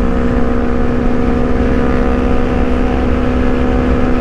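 Honda CBR250RR engine running at a steady cruise of about 95 km/h, one constant unchanging drone, under wind rushing over the helmet microphone.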